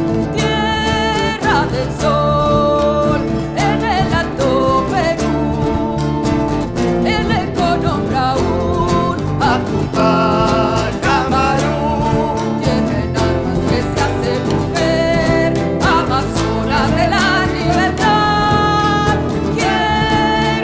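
Live Argentine folk band playing an instrumental passage: steady strummed guitar with a wavering melody line over it.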